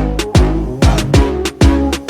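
Upbeat background music with a steady beat of deep kick drums over bass and a melodic line.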